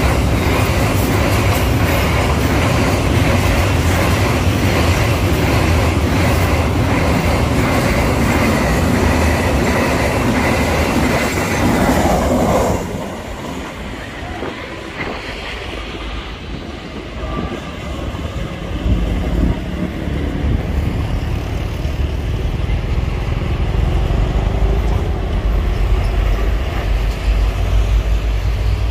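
Freight train wagons passing close at speed, steel wheels running on the rails with a steady high squealing tone. The sound cuts off suddenly about 13 s in, giving way to a quieter low rumble that swells again later.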